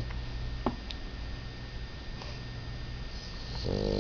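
French bulldog snoring in its sleep: mostly the quiet pause between two snores, with a low steady background and a small click under a second in, then the next buzzing snore starting near the end.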